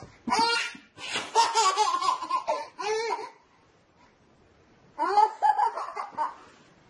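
A baby laughing in high-pitched bursts: a short laugh, then a long run of repeated laughs, and after a pause another burst about five seconds in.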